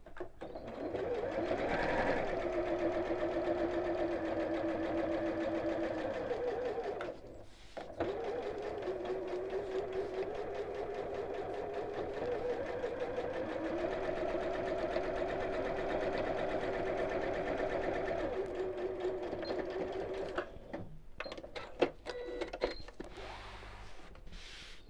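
Electric sewing machine stitching around a heart appliqué through fabric and fusible foam: one run of about six seconds, a brief stop, then a longer run of about twelve seconds at a slightly higher pitch. A few light clicks follow near the end.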